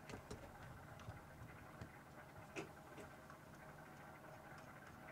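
Near silence: quiet room tone with a few faint, scattered clicks, the clearest about two and a half seconds in.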